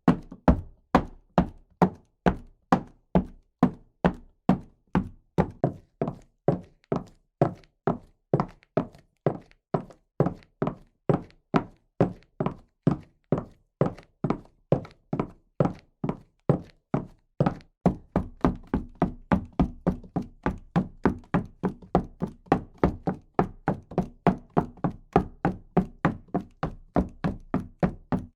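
Footsteps walking at a steady pace, each step a short sharp impact. About two-thirds of the way through, the steps take on a fuller, deeper sound.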